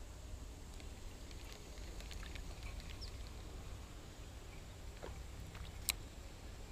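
Faint, scattered light clicks from a spinning fishing reel being handled, with one sharper click about six seconds in, over a steady low rumble.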